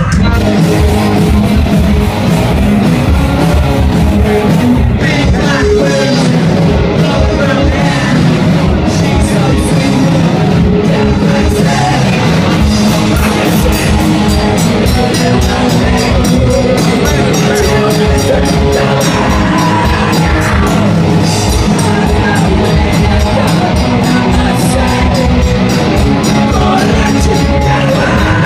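Live rock band playing loud, with a steady drum beat.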